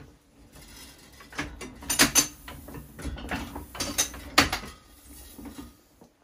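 Chandler & Price platen press cycling through an impression as its flywheel is turned by hand: gears and linkages rattling, with sharp clacks about two seconds in and again just past four seconds.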